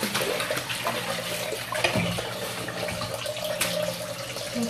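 Kitchen faucet running into a stainless steel sink, the water splashing over a steel pot and a mesh bag being rinsed under it, with a couple of sharp knocks.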